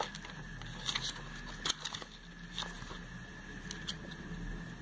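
Glossy catalogue pages being handled and turned by hand: a scattering of short paper crackles and taps over a faint steady high whine.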